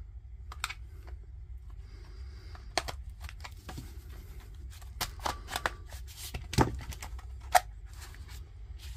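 Hard plastic case of a Festool 18 V battery pack being pried apart by hand and screwdriver: irregular sharp clicks and cracks, busiest about five to eight seconds in.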